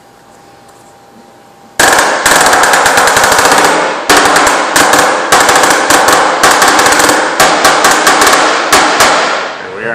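Pneumatic air hammer driving the caulked edge of a filter cloth into the groove of a filter press chamber plate. It starts about two seconds in and fires in loud, rapid runs of blows, broken by brief pauses as the trigger is released and pulled again.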